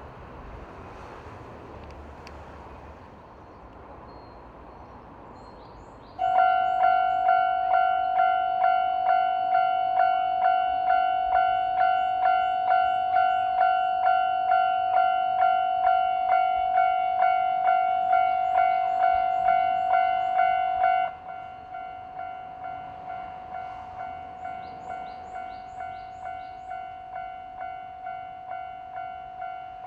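Japanese railway level-crossing alarm bell starting about six seconds in: an electronic ding repeating about twice a second, loud and steady. A little after twenty seconds it drops to a much quieter level and keeps ringing at the same pace.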